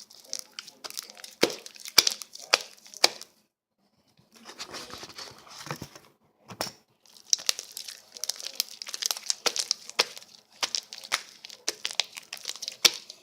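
Slime being squished and stretched by hand, making dense wet crackling clicks and pops. The crackling breaks off briefly twice.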